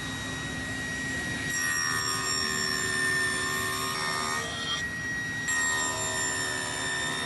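Electric power tool running steadily with a high whine while it works wood, its tone shifting slightly as the cut loads it, about halfway through and again later.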